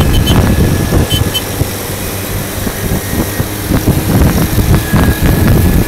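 Small moped engines running while riding, with wind buffeting the microphone.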